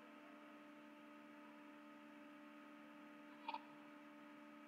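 Near silence: a faint steady electrical hum, with one brief faint tick about three and a half seconds in.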